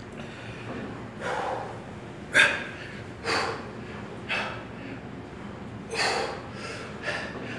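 A person breathing hard from exertion, with short forceful exhales about once a second. There is a pause of over a second in the middle before three quicker breaths.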